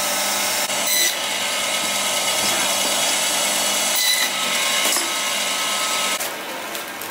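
Electric meat band saw running, its blade cutting through a piece of lamb; a steady high whirring hiss that drops in level about six seconds in.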